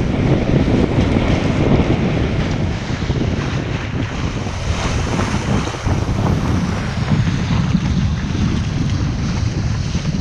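Heavy wind buffeting an action camera's microphone as a kiteboard planes fast over choppy water, with the hiss and splash of spray off the board. The rushing noise is steady, easing a little around the middle.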